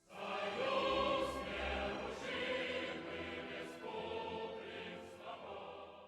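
Choral music: voices holding sustained chords, loudest about a second in and slowly getting quieter until it stops at the end.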